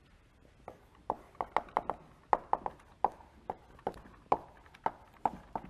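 Chalk writing on a blackboard: an irregular run of sharp taps and short strokes, starting under a second in.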